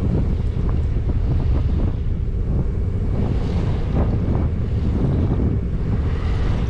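Steady wind buffeting the microphone, with the sea washing past the hull of a sailboat under way.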